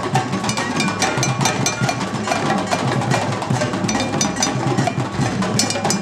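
Group hand drumming on djembes and congas: many players striking at once in a fast, steady, interlocking rhythm, with several strikes every second.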